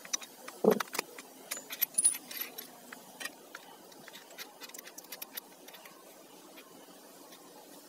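Small metallic clicks and clinks from handling an electric drill's keyed chuck, its chuck key and a steel twist drill bit while the bit is changed, with one louder knock just under a second in. The clicking thins to faint ticks in the second half.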